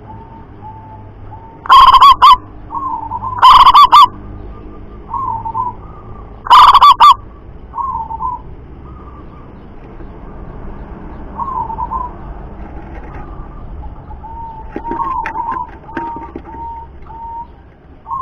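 Zebra dove (perkutut) cooing: three very loud, distorted bursts of rapid coos in the first seven seconds, with softer short coos scattered through the rest.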